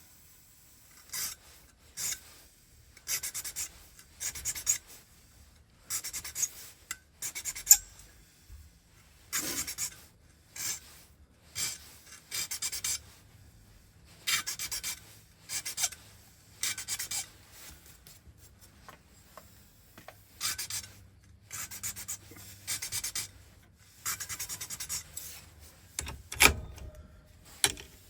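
Hand file rasping across a key blank in short repeated strokes, about one a second, as cuts are filed down where the lock has marked the key (key impressioning). A louder knock comes near the end.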